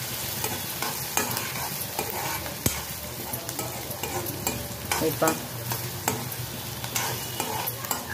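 Chopped onion and green chillies sizzling in hot oil in a metal kadhai, stirred with a metal ladle that scrapes and clicks irregularly against the pan. The onion is being fried in the tempering until it browns.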